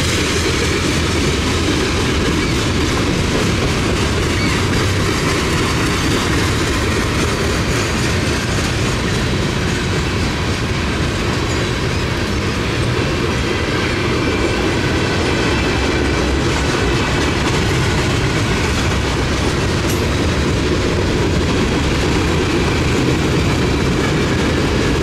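Freight cars of a mixed manifest train rolling past close by: a steady, loud rumble and clatter of steel wheels on the rails.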